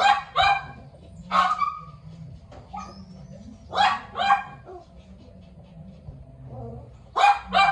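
Small dog giving short, sharp barks, mostly in quick pairs, about seven in all with pauses between.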